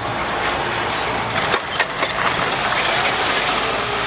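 Vehicle riding over a rough road: steady road and engine noise with rattling knocks, several of them close together about a second and a half to two seconds in.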